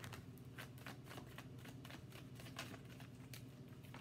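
Tarot deck being shuffled by hand: soft, irregular clicks and flicks of cards against each other, faint.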